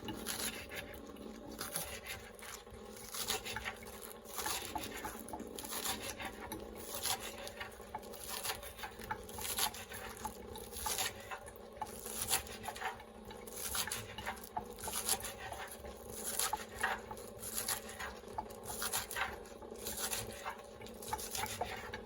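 Kitchen knife chopping scallions finely on a cutting board: a steady run of quick, uneven taps.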